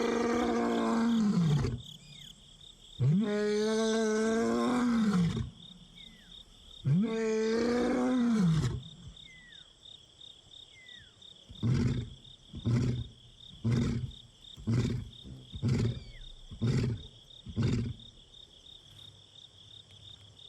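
Male lion roaring in a full bout: three long, deep moaning roars that rise and then fall in pitch, followed by a run of about seven short grunts, roughly one a second, that trail off. It is a contact call to a separated companion. A steady high insect trill runs underneath.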